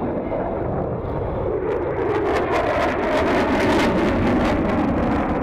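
F-22 Raptor's twin F119 turbofan engines running at high power as the jet maneuvers overhead. The noise swells about two seconds in, with a ragged crackle through the middle, and eases a little near the end.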